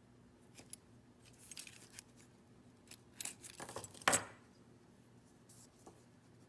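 Metal keys jangling and clinking against a titanium carabiner key holder as they are moved on its rings, with a sharp, louder metallic click about four seconds in.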